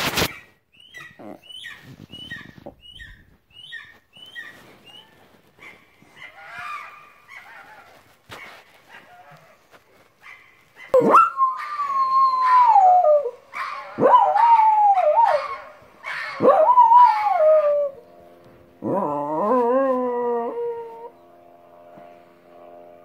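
A dog howling: four loud, long howls, each rising and then sliding down in pitch, the last one lower and wavering. Before them, about the first half, there are only faint short chirps, about two a second.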